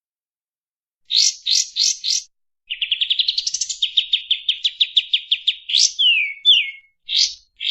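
Kapas tembak songbird singing, starting about a second in: a few quick rising notes, then a long fast trill of repeated notes, two downward-slurred whistles, and more quick rising notes near the end.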